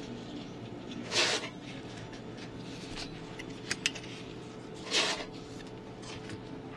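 Handling of a Keihin CVK carburetor set, two short swishes about four seconds apart with a quick pair of sharp clicks between them, over a steady hum.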